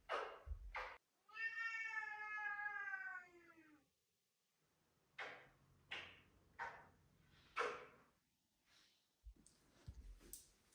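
A domestic cat giving one long, drawn-out meow lasting about two and a half seconds, dipping slightly in pitch at its end. Several short, sharp sounds come before and after it.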